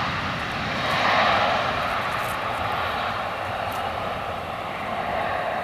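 F-16 fighter's single jet engine in afterburner on its takeoff roll and lift-off: a loud, steady rushing noise that swells about a second in.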